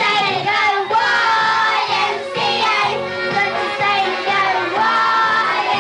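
Young girls singing together into a handheld microphone over backing music with a steady beat.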